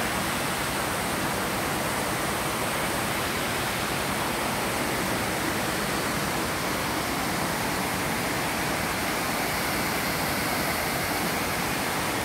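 Steady rush of water tumbling over rocks and a small waterfall in a river, an even hiss-like noise that does not change.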